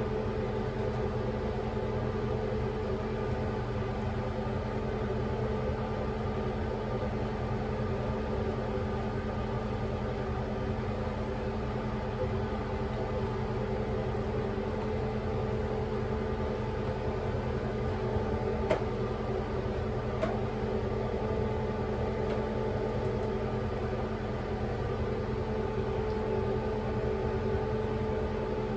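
Steady mechanical hum with a low, unchanging drone, like a small fan motor running, and two faint clicks about two-thirds of the way through.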